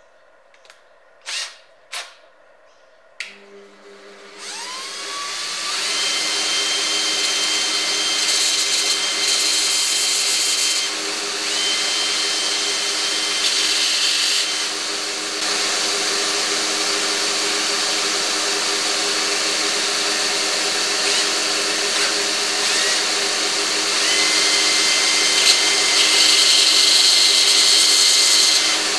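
After a few sharp clicks, a bench belt grinder starts up about three seconds in and runs steadily. A handheld drill spins up in several rising whines while its small bit is held against the moving sanding belt, with a grinding hiss.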